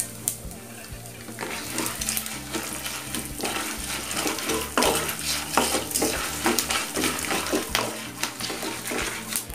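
Peanuts, curry leaves and dried red chilli frying in hot sesame oil in a non-stick kadai, sizzling steadily. From about a second and a half in, a wooden spatula stirs and scrapes the pan in quick, repeated strokes.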